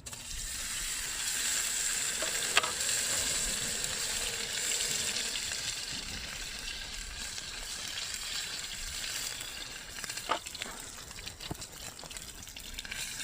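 Wagyu rump steak sizzling steadily in a hot pan greased with beef tallow, the sizzle starting as the meat goes in. Two light knocks sound over it, about two and a half seconds in and again near ten seconds.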